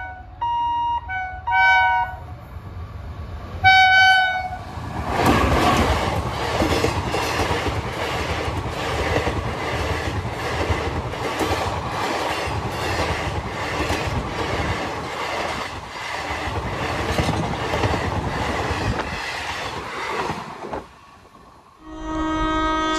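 Train horn sounding several short blasts, then a passenger train passing close by at speed, its wheels clattering in a steady rhythm over the rail joints for about fifteen seconds. The train noise stops suddenly near the end and another horn blast starts.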